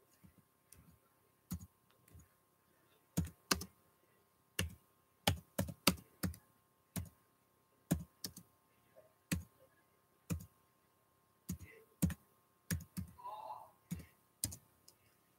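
Computer keyboard keys being pressed slowly and unevenly: single sharp clicks, a few in quick pairs, spaced roughly half a second to a second apart.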